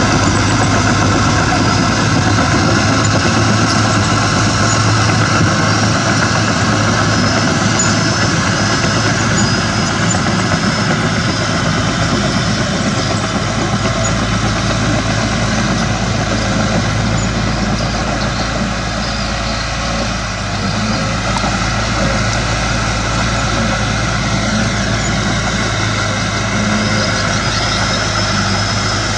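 Heavy diesel earthmoving machinery running steadily at a work site, a constant engine drone with a low hum, dipping slightly in level about two-thirds of the way through.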